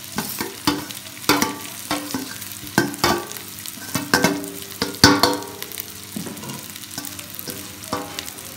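Half-boiled rice tipped from a metal plate into a hot metal karahi, the plate's rim knocking and scraping against the pot in about a dozen irregular, ringing clinks, loudest about five seconds in and thinning out near the end. Under it, the vegetables and egg in the pan sizzle as they fry.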